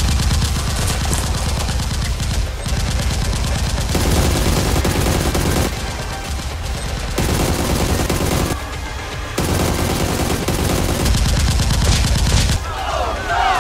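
Bursts of rapid automatic gunfire: several long volleys with short lulls between them.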